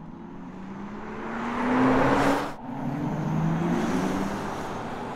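BMW iX3 electric SUV driving past at speed: a rising electric drive hum over tyre and road noise that swells to a peak about two seconds in. The sound breaks off suddenly, then picks up again with more rising hum that fades as the car moves away.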